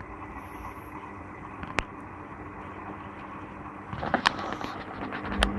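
Servis Gem M310 washing machine resting between tumbles: the drum motor's hum has stopped, leaving a faint wash of noise with a sharp click and later a few clicks and knocks, and the motor hums back into life near the end.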